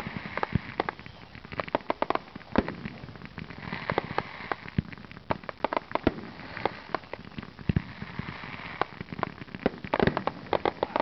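Aerial fireworks bursting in quick, irregular succession: a steady barrage of bangs and pops, with stretches of rapid crackle from crackling stars. A dense flurry of bangs comes near the end.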